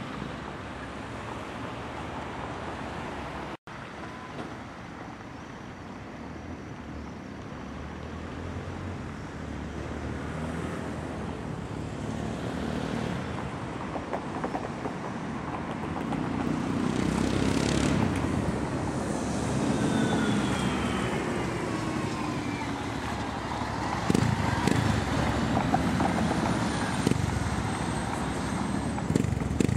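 Road traffic going by and growing louder, with a vehicle's pitch falling as it passes about two-thirds of the way in. Near the end a Yamaha MT-03 fitted with a Takkoni end silencer, its dB-eater removed, runs close by.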